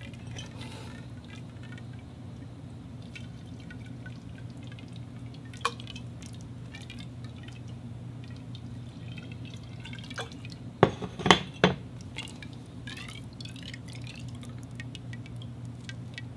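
Water dripping inside a conduit, each drop ringing briefly: one drop about five and a half seconds in and a quick run of three louder drops near eleven seconds, with a few faint ticks, over a steady low hum.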